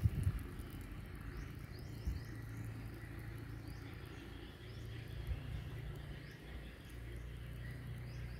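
Outdoor garden ambience: scattered short high chirps over a steady low rumble, with a soft thump right at the start.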